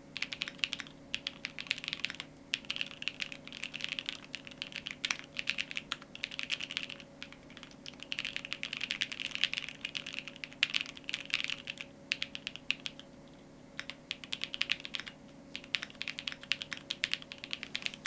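Typing on a Cub65 custom mechanical keyboard: quick runs of keystrokes in bursts with brief pauses between them, over a faint steady hum.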